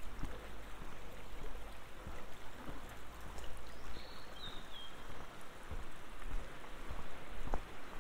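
A shallow river running steadily over stones, a continuous rushing of water, with a few soft footsteps on a concrete path.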